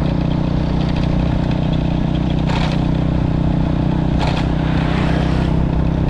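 Motorcycle engine running at a steady cruise while riding along a road, with wind rushing over the microphone and two brief gusts of noise partway through.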